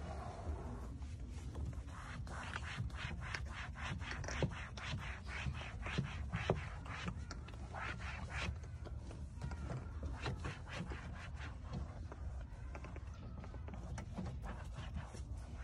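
A cloth rubbing over pleated vinyl door upholstery in quick back-and-forth wiping strokes. The strokes come thickest through the middle of the stretch and thin out toward the end.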